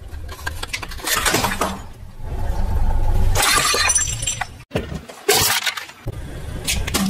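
Car tyre rolling over a ceramic plate heaped with jelly and candy: crunching, then the plate cracking and shattering into shards, over the low rumble of the car.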